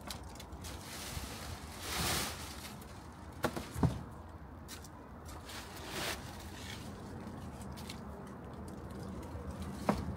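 Dry fallen leaves rustling as a leaf grabber's plastic jaws scoop them off paving slabs and tip them into a bin bag. There are a few sharp knocks from the jaws and handle against the slabs and the bin, the loudest two a little apart, about four seconds in.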